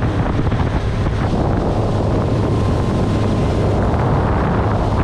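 Boat underway: steady wind rushing over the microphone, over a low drone from the boat's running engine and hull.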